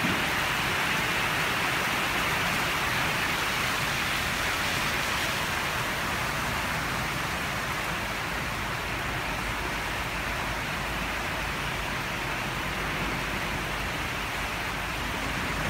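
Heavy rain falling steadily, an even hiss that eases a little partway through.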